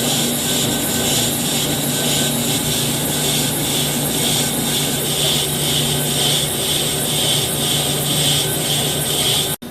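Lathe rough-turning a cast iron tire mold segment: a steady hiss of the carbide insert cutting over the machine's constant hum, pulsing about twice a second. It breaks off abruptly near the end.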